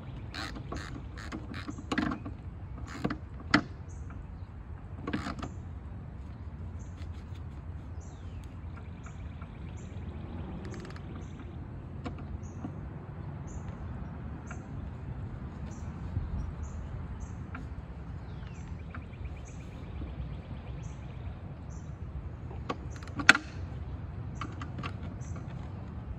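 Metal clinks and clicks from a wrench working under the deck of a tipped-over walk-behind lawn mower: several in the first few seconds and one sharp clack near the end. A steady low hum runs underneath.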